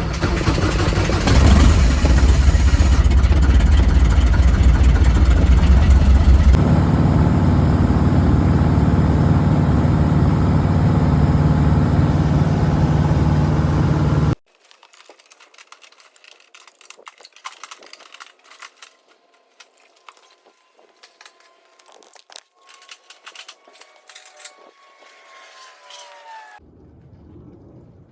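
Piper PA-18 Super Cub's piston engine catching and running steadily at warm-up, its pitch changing about six seconds in. It cuts off abruptly about halfway through, leaving scattered light clicks and small knocks.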